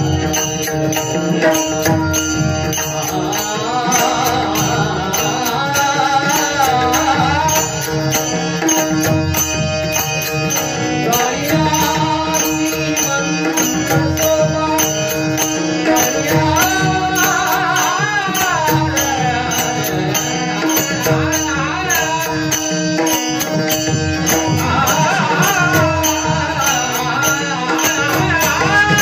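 Marathi devotional bhajan: a male voice sings a wavering melodic line over a steady drone, with a two-headed barrel drum and small hand cymbals keeping an even beat, in the closing Bhairavi of the bhajan session.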